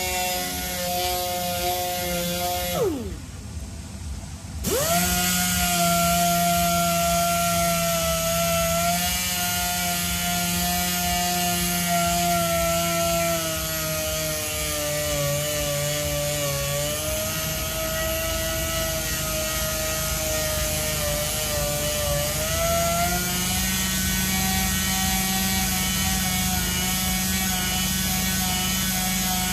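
Power sander with 320-grit paper running with a steady whine, sanding curb rash out of an alloy wheel. About three seconds in it is switched off, its pitch falling away. It starts again with a rising whine about a second and a half later, and its pitch sags slightly a couple of times under the pressure of sanding.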